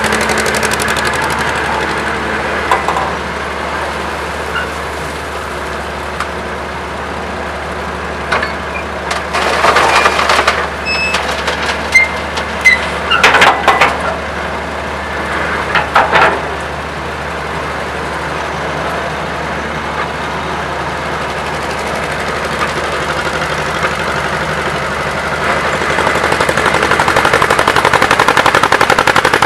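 Old diesel excavator engine running with a fast knocking beat. About a third of the way in, several seconds of loud clattering as a bucketload of earth and stones is dumped into a truck's steel dump bed. The engine gets louder near the end.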